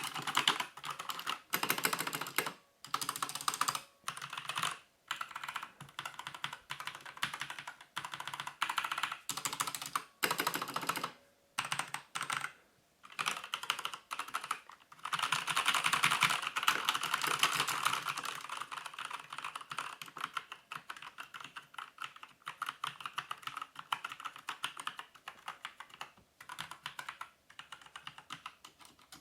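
Typing on a mechanical keyboard with Kailh brown switches: rapid runs of key presses in bursts, with short pauses between them. The presses feel smooth and have a very soft click that is nearly undetectable.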